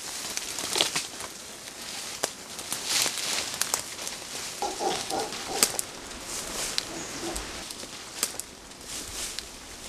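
Footsteps and rustling through dry leaf litter and undergrowth on a jungle trail, an irregular run of crackles and swishes. A short pitched call sounds about five seconds in.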